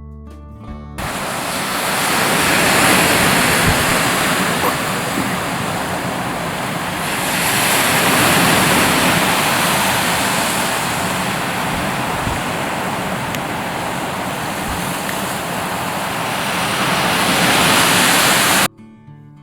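Ocean surf washing onto a shore: a loud, steady rush that swells and eases every several seconds and cuts off abruptly near the end. Music is heard briefly at the start.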